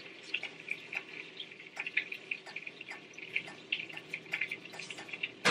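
Hand-twisted pepper grinder cracking peppercorns: faint, irregular crunchy clicking, with one sharper click at the very end.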